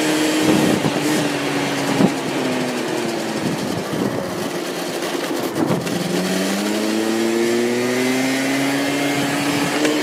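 Scooter engine under way, with wind rushing over the helmet microphone. The engine note drops in the first couple of seconds, runs lower for a while, then rises steadily over the last four seconds as the scooter accelerates. A few brief knocks come through along the way.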